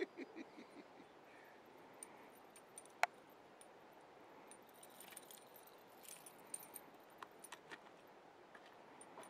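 Faint steady hiss with a single sharp click about three seconds in, then a scatter of light clicks and jingles from about five seconds on.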